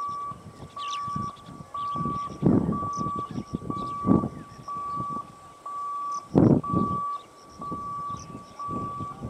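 An electronic warning beep repeating about once a second, each beep about half a second long at one steady pitch, with small birds chirping and several short gusts of rushing noise, the loudest about six and a half seconds in.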